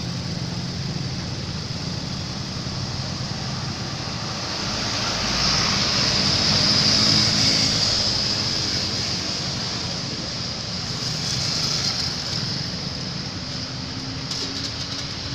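Road traffic running steadily, with a motor vehicle passing close and loudest about six to eight seconds in.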